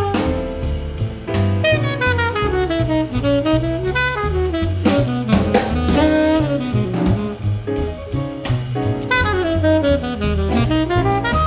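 Live jazz: a tenor saxophone solos in fast running lines that sweep up and down, over a walking upright bass and a drum kit keeping time on the cymbals.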